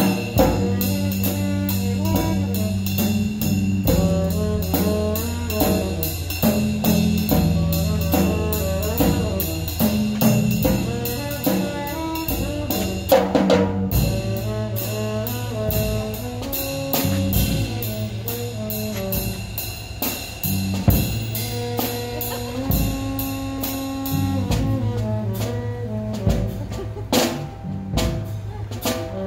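Upbeat dance music with a steady beat of about two beats a second and sustained pitched notes over it.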